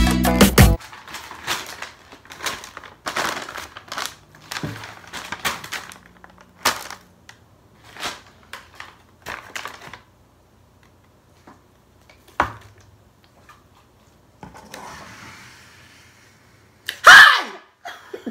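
Paper takeout bags rustling and crinkling, with scattered knocks on a table as things are set down, over a faint low hum. Near the end, a short, loud, high vocal shriek.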